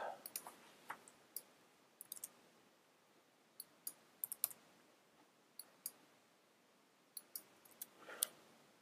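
Faint, scattered clicks of a computer keyboard and mouse, one or two at a time, as text is typed and edited. A brief soft rush of noise sounds near the end.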